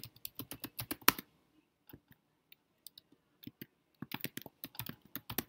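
Typing on a computer keyboard: a quick run of keystrokes, a few scattered taps, then another quick run about four seconds in, as a two-word label is typed.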